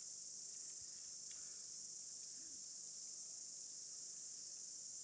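Steady, high-pitched insect chorus, unbroken throughout.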